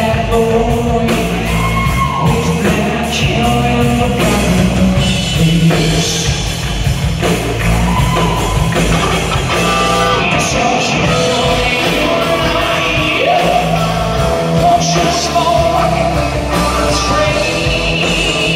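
Live rock band playing: electric guitars, bass guitar and a drum kit, with a lead singer's vocals over them.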